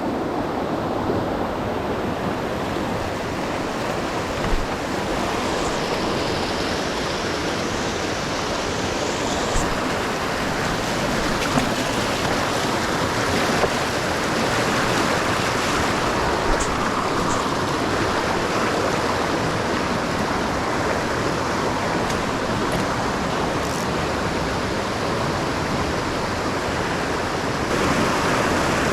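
Mountain torrent rushing steadily, a continuous loud water noise, with a few light clicks now and then.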